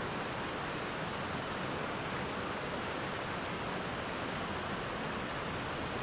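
Steady rushing of water over creek rapids and falls, an even, unchanging wash of noise.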